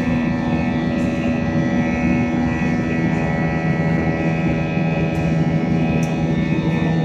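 Steady cabin drone of a jet airliner climbing out: engine hum with several constant tones over rushing air noise. The main hum shifts to a lower pitch about halfway through.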